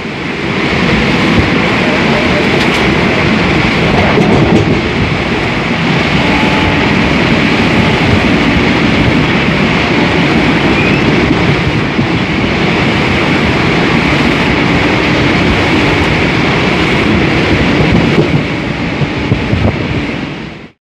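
Pushpak Express passenger train running across a railway bridge over the river, heard from inside the train: a steady, loud rumble and clatter of wheels on the rails. The sound fades out sharply near the end.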